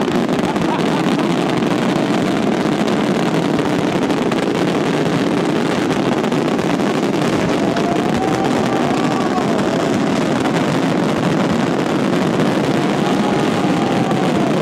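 Fireworks barrage at close range: many aerial shells bursting at once, their bangs and crackle running together into one loud, unbroken rumble with no pause.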